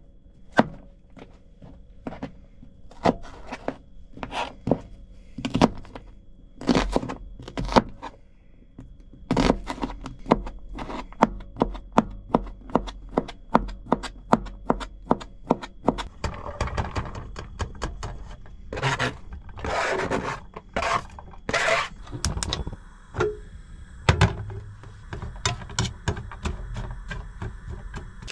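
Knife chopping food on a cutting board: scattered sharp knocks at first, then a steady run of about two or three chops a second, followed by scraping.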